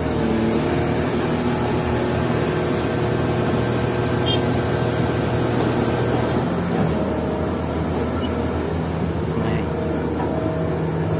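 Caterpillar 120K motor grader's diesel engine running steadily while the blade is lowered with the hydraulic control levers. The engine note shifts about six and a half seconds in and again near nine seconds.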